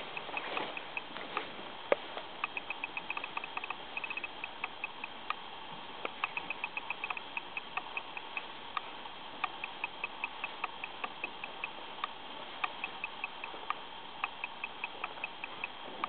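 Irregular runs of small, quick clicks, several a second, over a steady hiss: mechanical ticking and handling noise from the handheld camera as it is carried through the rooms.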